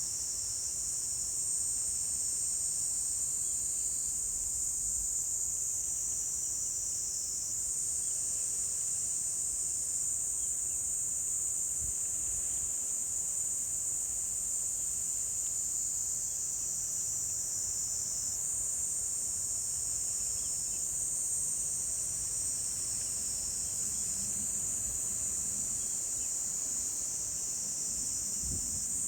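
Insects singing in a dense chorus: a continuous high-pitched shrill trill, with several overlapping voices joining and dropping out every few seconds.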